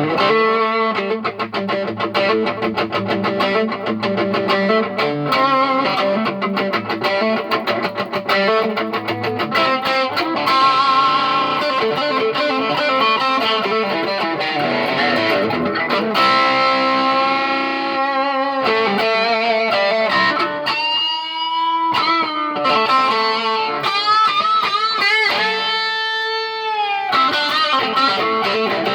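Electric guitar played solo, a lead riff of quick note runs that gives way, about two-thirds through, to long notes bent and wavering in pitch, recorded through a phone's microphone.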